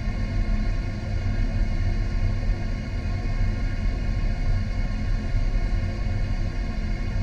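Steady low rumble with a constant hum, even and unchanging throughout.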